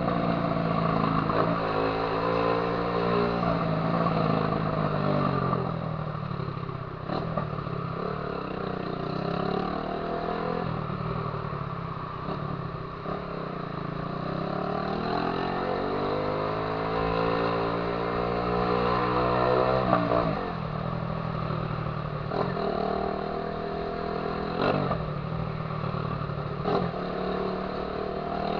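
Honda CG 150 Titan single-cylinder engine running through a loud aftermarket 'viúva-negra' exhaust. Its pitch climbs and drops several times as the bike accelerates and eases off through the gears, with a few sharp cracks.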